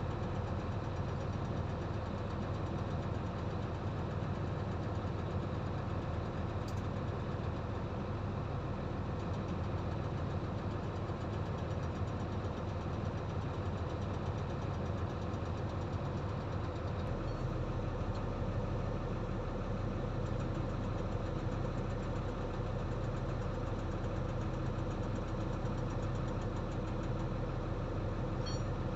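A dump truck's diesel engine running steadily, with a constant low drone.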